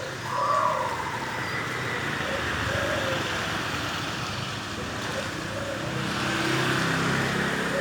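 Zebra dove (perkutut) cooing: one short, clear coo note about half a second in, then a few faint notes, over steady road-traffic noise that grows louder for a second or two near the end.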